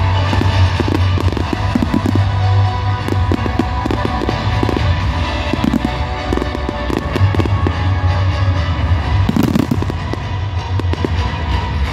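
Fireworks barrage: many shells bursting in rapid succession, with dense bangs and crackle throughout.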